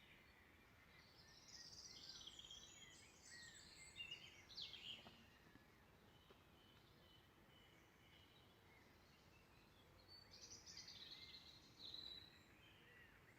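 Faint birdsong: a burst of quick, high chirping phrases from about a second and a half to five seconds in, and another from about ten to twelve and a half seconds in.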